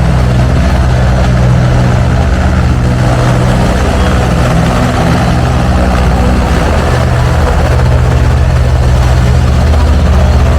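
Motor engine running loudly and steadily, a low drone with little change in level.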